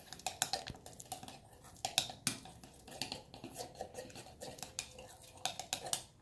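A utensil stirring a thick dish-soap mixture in a bowl: irregular clinks and taps against the bowl, a few each second.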